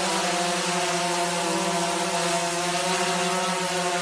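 DJI Phantom 3 Professional quadcopter hovering, its four motors and propellers giving a steady buzz at a constant pitch.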